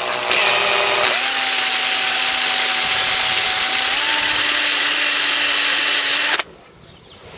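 Makita drill spinning a wire wheel against a rusty axe head, scrubbing off the rust: a steady motor whine under a loud scraping hiss. The motor's pitch steps up slightly about a second in and again about four seconds in, and the drill stops suddenly a second before the end.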